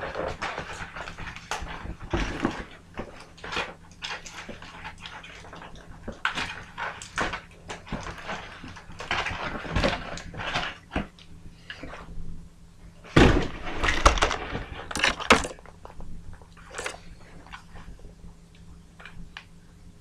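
Irregular rustling, crinkling and knocking of a toy's cardboard-and-plastic packaging being handled as it is unboxed, with a louder cluster of knocks about two-thirds of the way through.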